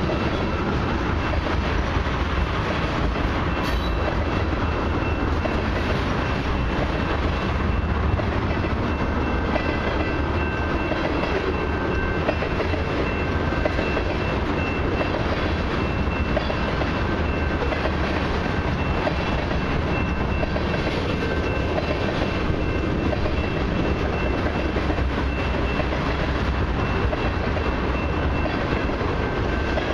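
Loaded ethanol tank cars of a long freight train rolling past, their steel wheels rumbling and clacking steadily over the rails. A faint steady high whine runs through the rumble.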